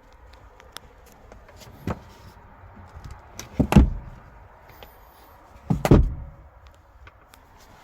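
Car doors on a 2014 Subaru Crosstrek being shut: two solid slams about two seconds apart, with a lighter knock before them.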